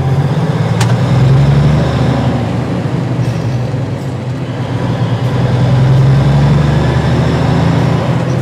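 Cummins diesel engine of a 1979 Kenworth W900A truck running under way, heard from inside the cab. Its sound swells, eases off around the middle and swells again, with a single sharp click about a second in.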